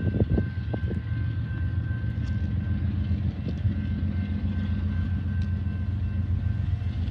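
Steady low diesel rumble, with a faint steady high tone above it and a few soft knocks in the first second.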